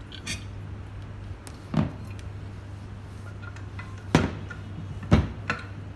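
Parts of a Flair 58 lever espresso maker knocking and clicking against each other and the table as they are handled and fitted together: five short knocks, the loudest about four and five seconds in.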